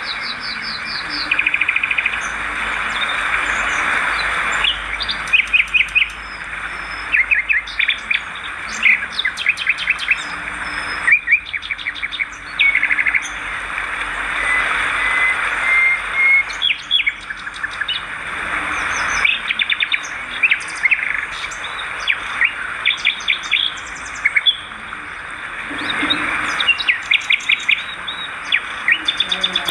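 Edible-nest swiftlets twittering: many quick, overlapping trains of short high chirps over a steady hiss.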